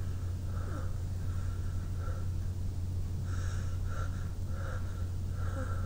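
A person's short, snuffly breaths and sniffs through a tickling nose, several a second in the second half, as a sneeze builds but does not come; a steady low hum runs underneath.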